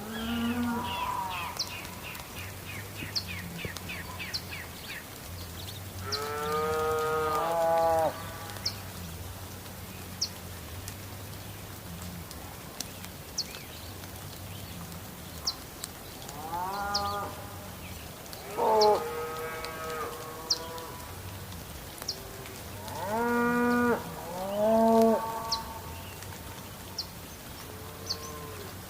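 Cattle mooing: five or six drawn-out calls, each one to two seconds long, in three bouts, over a steady background hiss with scattered sharp ticks.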